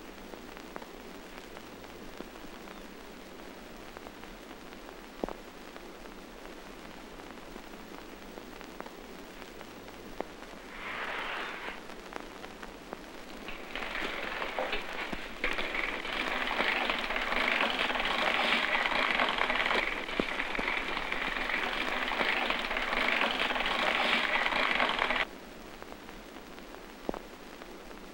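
Printing press gears turning: a noisy grinding rattle that builds over a couple of seconds, runs for about ten seconds and cuts off suddenly, over a constant crackling hiss.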